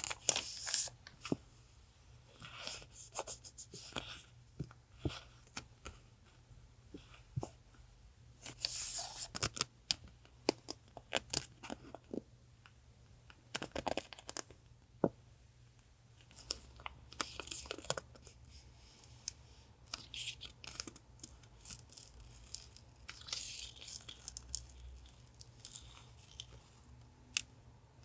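Paper being handled for a collage journal: several short passes of paper tearing and crinkling, with scattered light taps and clicks of paper items being picked up and set down.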